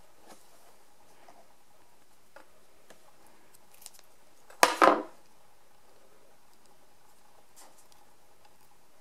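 A few faint handling clicks, then about halfway through one sharp knock followed by a short rattle: a small hard object set down on or picked up from a tabletop.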